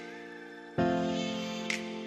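Background music: soft held chords, with a new chord coming in about a second in and a short bright percussive hit near the end.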